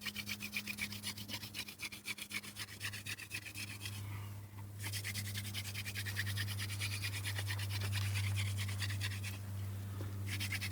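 Wooden hand-drill spindle spun back and forth between the palms in a fireboard notch: a rapid, rhythmic dry rasping of wood grinding on wood, broken twice briefly. The drill is being seated at an easy pace, before any smoke.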